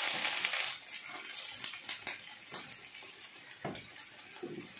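Water just poured into a hot frying pan of stir-fried vegetables hisses loudly, the sizzle dying down within the first second. Quieter simmering follows, with scattered light clicks of a wooden spatula stirring in the pan.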